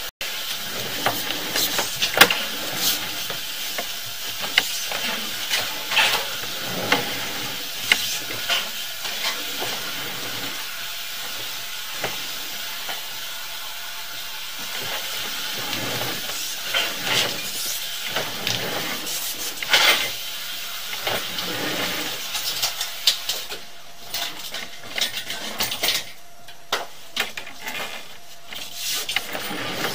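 Drain-cleaning machine's spring cable with a chain-knocker head spinning in a sewer pipe: irregular metallic clinks and knocks over a steady hiss.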